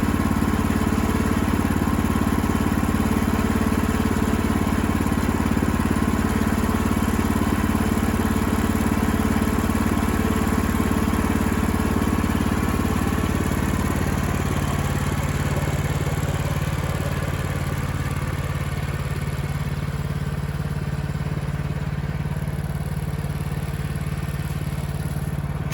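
Small gasoline engine of a Woodland Mills bandsaw sawmill running steadily. About fifteen seconds in, its note drops lower and it runs slightly quieter.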